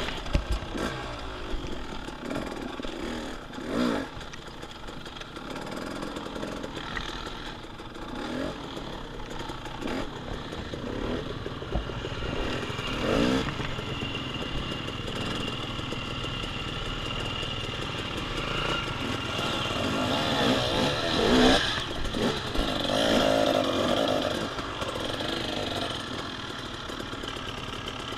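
Dirt bike engine revving up and down in repeated bursts while riding. It gets louder about two-thirds of the way through.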